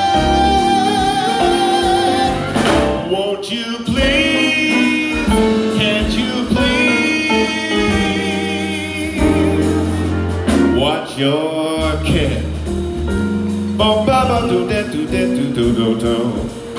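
Live big band jazz: saxophones, brass, piano, bass and drums playing behind a male vocalist singing into a microphone.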